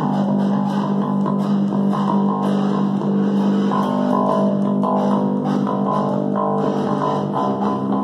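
A live electric bass and electric guitar playing a rock riff together.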